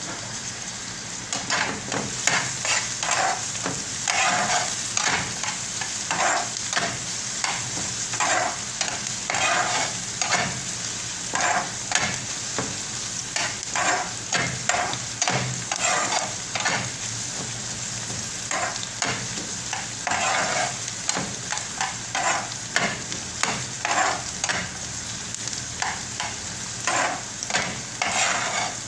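Chopped onions and green chillies sizzling in hot oil in a pan, stirred with a spatula that scrapes in repeated strokes, about two a second, with a short lull just past the middle.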